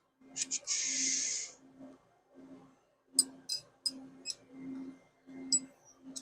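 Light metallic clicks and clinks of vise heads and hardware being handled, with a short hiss about a second in.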